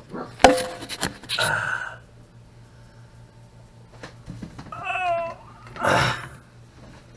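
A sharp knock and a second of clatter as the handheld camera is set down by a stainless steel kitchen sink. Later comes a short wavering voice-like sound, then a breathy puff.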